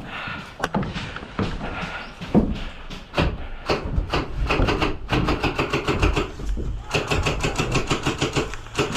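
Airsoft electric rifle firing on full auto in two long bursts of about a dozen shots a second, the second starting about seven seconds in, with a gearbox whine under the shots. A few single sharp cracks come before them.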